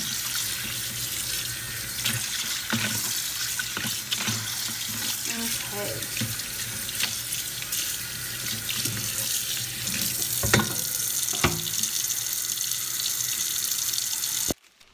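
Kitchen tap running steadily into a stainless steel sink, splashing over meat in a plastic colander while it is rinsed by hand. Two sharp knocks come about two thirds of the way through, and the running water cuts off suddenly shortly before the end.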